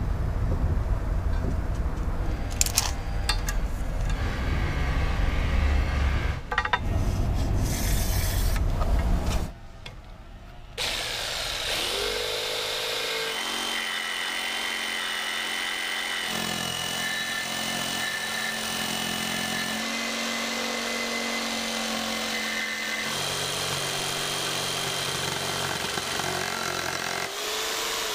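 Corded jigsaw cutting a half-inch aluminum plate: a steady motor whine with the blade rasping through the metal, over most of the second half. The first third is louder, rougher noise, and there is a brief drop in level just before the steady cutting starts.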